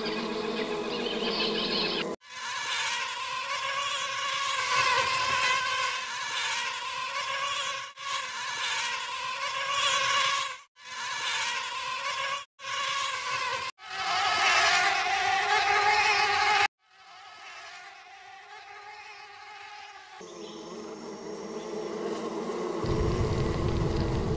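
Honey bees buzzing as a swarm: a steady pitched drone, broken by several sudden cuts and quieter for a few seconds about two-thirds of the way through. Near the end a low rushing noise swells under the buzzing.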